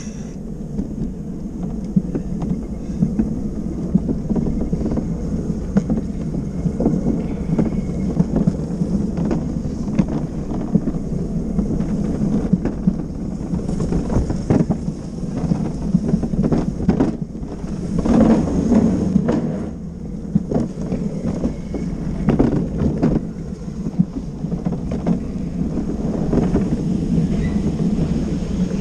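Luge cart rolling fast down an asphalt track: a steady rumble from the wheels on the road, broken by frequent sharp knocks and rattles as it runs over bumps and joints.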